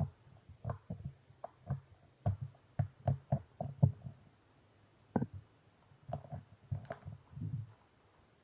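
Clear slime being handled, making a string of irregular sticky pops and clicks, with a short lull about four and a half seconds in.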